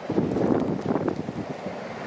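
Wind buffeting the microphone in gusts, over the rumble of heavy snowplow traffic.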